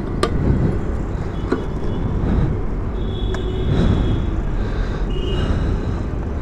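Steady low rumble of nearby traffic, with a sharp click about a quarter second in as the motorcycle's fuel-tank filler cap is snapped shut.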